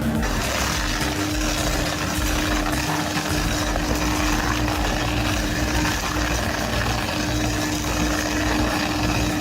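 Stump grinder running steadily as it cuts a stump down to chips: a constant dense mechanical noise with a steady hum underneath.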